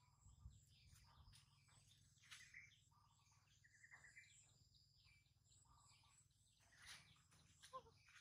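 Near silence with faint, scattered bird chirps and a short trill.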